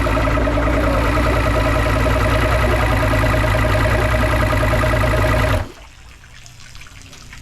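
Mercury Pro XS outboard engine idling with one ignition coil unplugged, so a cylinder is not firing: the sign of a dead coil. The engine is shut off about five and a half seconds in, leaving faint trickling water.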